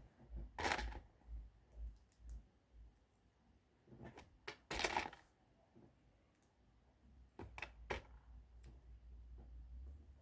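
LEGO plastic pieces being handled and pressed together: a few short bursts of clicking and clattering, the longest about five seconds in, over a low steady hum.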